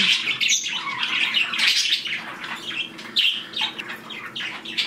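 A flock of budgies chattering, with many quick, overlapping high chirps and warbles.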